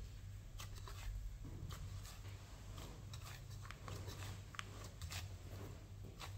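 Hands kneading a ball of flour-and-water dough in a plastic bowl: soft, irregular thumps and rubbing as the dough is pressed and turned against the bowl, with a short squeak about four and a half seconds in.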